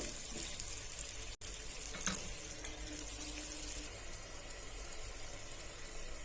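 Cauliflower and yogurt curry with a little added water simmering and sizzling in a pan on a low flame, a steady hiss with a couple of light clicks about two seconds in.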